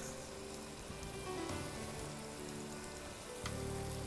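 Onion, garlic and tomato frying in oil in a pot: a steady sizzle, with a couple of faint clicks.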